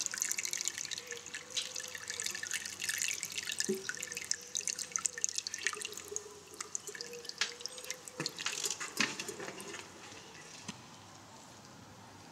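Water dripping and trickling into shallow puddles on wet paving stones: a patter of small drips and splashes that thins out and goes quiet after about nine seconds.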